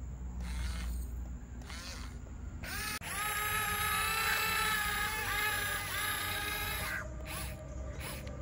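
Electric gear motors of a toy RC excavator whining, coming in with a rising pitch about three seconds in and dipping in pitch several times as they work, with faint clicking before they start.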